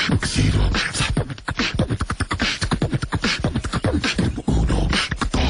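A person beatboxing: a fast run of vocal clicks, hisses and deep bass thumps.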